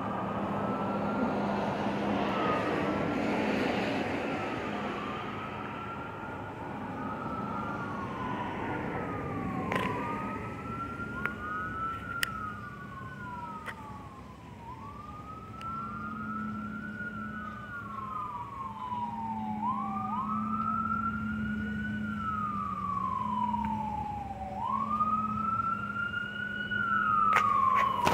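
Sirens wailing, a slow rise and fall in pitch repeating every two to three seconds. Two sirens sound slightly out of step with each other, growing louder toward the end.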